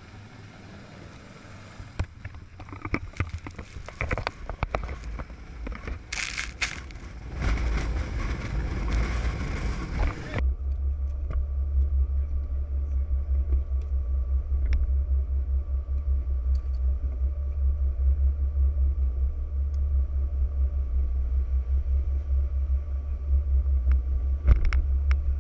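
Wind buffeting the microphone with water spray and knocks as a rigid-hull inflatable boat runs over the sea. About ten seconds in this gives way suddenly to the boat's engine idling, a steady low rumble with a faint hum, and there is a sharp knock near the end.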